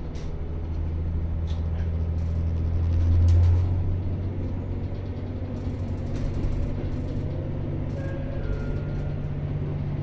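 Diesel railcar's engine running under power, heard from inside the rear cab as the train gathers speed: a deep, steady drone that builds to its loudest about three seconds in, then eases to an even run. Scattered clicks and rattles sound over it.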